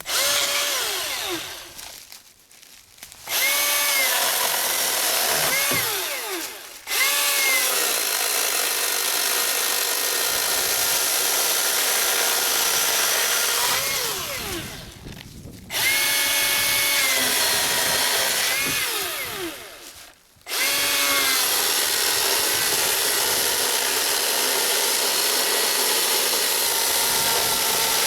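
Battery electric chainsaw running at high speed in several bursts, its motor whine. The trigger is released and the motor winds down about 2, 6, 15 and 20 seconds in, then spins back up each time.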